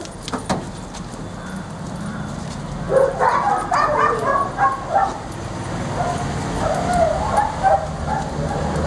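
A detection dog whining and yipping in short, high, excited calls as it works the wall, in a dense flurry about three seconds in and again in a run from about six seconds in.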